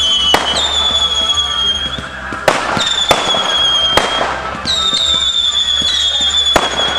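Fireworks going off: sharp bangs of shells bursting, several high whistles of about a second each that sink slightly in pitch as they fade, and a steady crackle underneath.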